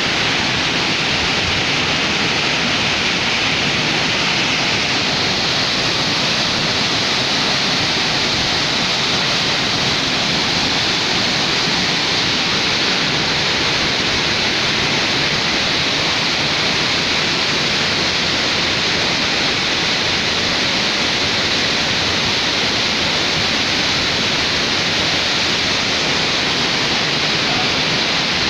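Waterfall and river water rushing over rocks: a steady, unbroken rush of falling water that holds at one level throughout.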